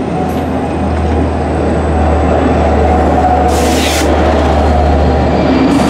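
LIRR EMD diesel locomotive and its train of bilevel coaches rolling past, with the engine's low drone growing louder about a second in. A short hiss comes about three and a half seconds in, and another near the end.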